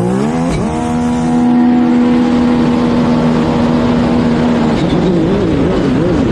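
Jet ski engine climbing quickly in revs, then holding a steady high-pitched note at speed. Near the end the pitch wavers up and down.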